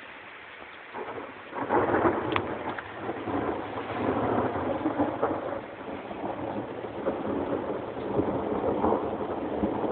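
Thunder: a crackling peal breaks out about a second in and rolls on as a long, uneven rumble with repeated crackles.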